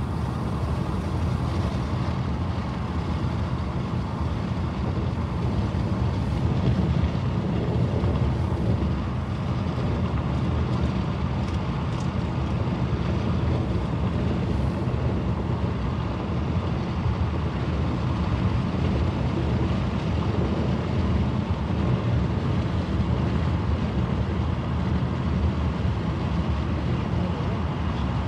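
Steady low rumble of a car driving at highway speed, heard from inside the cabin: road, engine and wind noise, unchanging throughout.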